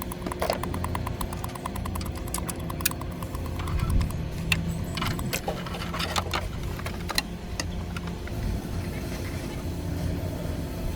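Tool work on machinery: a run of rapid, evenly spaced clicks early on, then scattered metal clicks and clinks, over a steady low hum.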